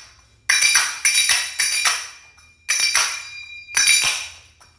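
Finger cymbals (zills) played in a belly dance rhythm: quick runs of bright metallic strikes, each ringing and fading, broken by short pauses between the groups.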